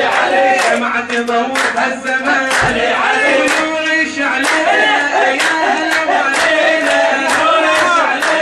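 A group of men singing a chant in unison, with sharp hand claps about twice a second.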